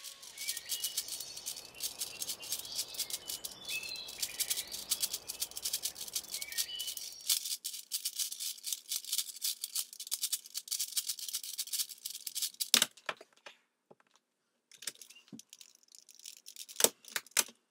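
Rapid plastic clicking of a V-Cube 6 (6x6 Rubik's cube) as its layers are turned, sped up to double speed. The clicking is dense for about seven seconds, then thins to scattered clicks, with a few louder clacks near the end; faint music plays under the first part.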